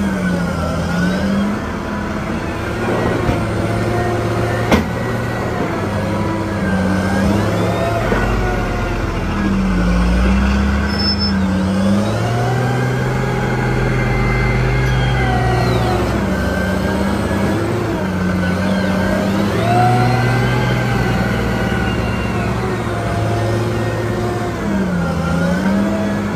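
Caterpillar 990 wheel loader's diesel engine revving up and dropping back again and again as it lifts and tips its bucket. A deeper rumble joins it for a while in the middle, and there is one sharp click about five seconds in.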